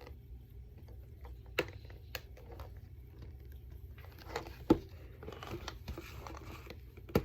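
Hands handling and trying to open plastic toy packaging: scattered sharp clicks and taps, with a stretch of rustling about halfway through.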